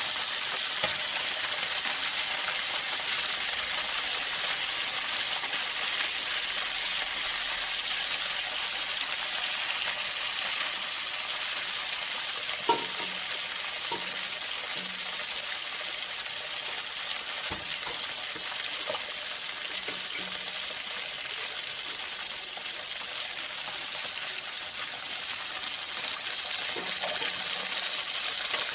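Fish frying in hot oil in a wok: a steady sizzle with a few sharp pops and crackles, the loudest about halfway through.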